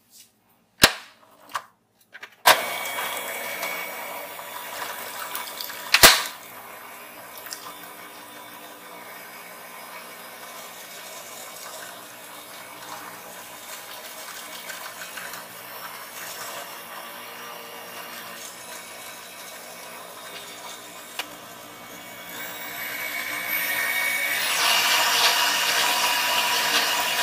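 Electric stand mixer with twin beaters switched on after a couple of clicks, then running steadily as it mixes thick brownie batter in a glass bowl. A sharp click about six seconds in, and the mixer grows louder, with a rising whine, near the end.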